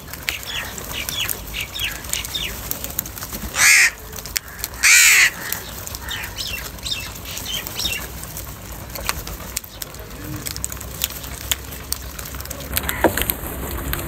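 A flock of house crows cawing over and over while feeding, with two much louder, harsh caws close by about four and five seconds in.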